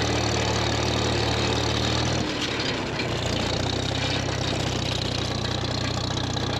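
Farmall M tractor's four-cylinder engine running steadily as it drives, its note dropping about two seconds in and settling into a steady hum again a second later.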